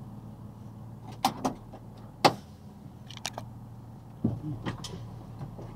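Box truck engine idling steadily in the cab, with a series of sharp clicks and knocks over it, the loudest about two seconds in, as the driver handles the door to climb out.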